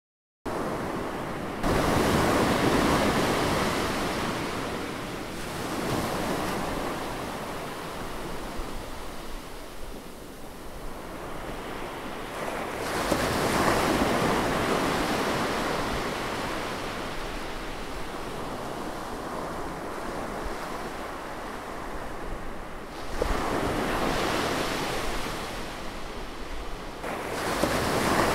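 Ocean surf: large waves breaking and washing through, a continuous rushing noise that starts abruptly just after the beginning and swells louder several times, around two seconds in, around thirteen seconds in, and again near the end.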